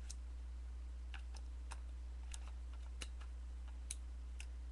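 About ten faint, irregular small clicks and taps from hands handling a Canon Rebel XS digital SLR camera body, over a steady low hum.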